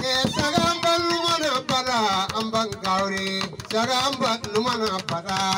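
A man's voice singing through a handheld microphone, with long held notes that glide up and down.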